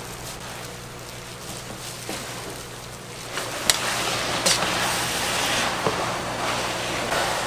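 Seaweed stems being stir-fried in a pan: a steady sizzle with a spatula clacking and scraping against the pan, louder from about three seconds in. Before that there is softer rustling of the stems being tossed by gloved hands. A steady low hum runs underneath.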